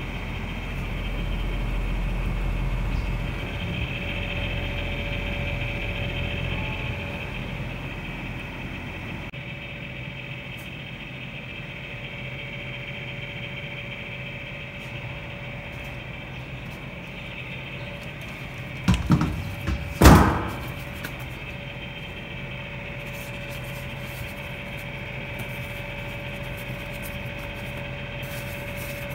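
Daikin air-conditioner outdoor unit running steadily on its newly replaced fan motor: an even, quiet hum with a faint high whine. It no longer squeals. Two or three sharp knocks come about two-thirds of the way through and are the loudest sounds.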